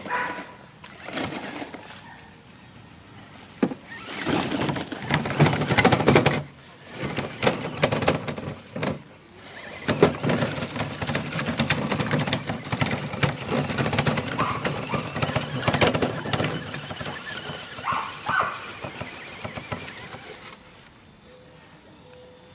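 HPI Crawler King RC truck with a 35-turn electric motor driving in bursts with short pauses, towing a mini cart over dirt and grass; it goes quieter near the end.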